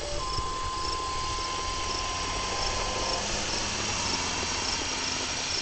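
Insects chirping in an even rhythm, two or three chirps a second, over a steady hiss. A steady high tone sounds for about the first three seconds.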